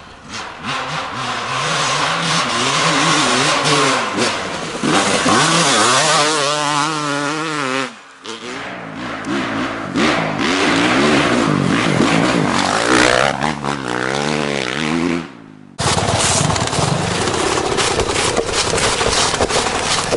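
Dirt bike engine revving hard, its pitch climbing and dropping over and over as the rider works the throttle through the gears. About 15 seconds in the sound breaks off and a rougher stretch of dirt bike riding follows.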